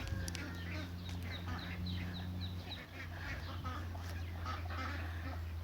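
A flock of ducks calling: many short, rapid calls overlapping several times a second, over a steady low hum.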